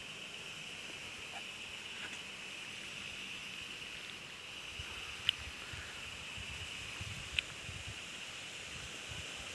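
Steady high insect chorus, a continuous buzz, with two sharp clicks about five and seven seconds in and low rumbling of handling in the second half.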